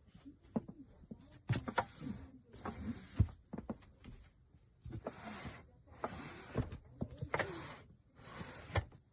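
Irregular knocks and clicks mixed with a few short rasping, sliding noises, as of furniture or objects being handled.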